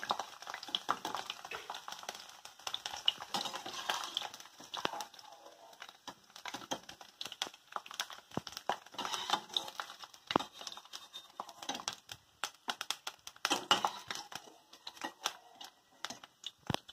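Potato fingers par-frying in hot oil in a steel kadai: steady, irregular crackling and popping of the oil, with now and then a sharper tap or scrape of a perforated skimmer against the pan as pale, half-cooked fries are lifted out.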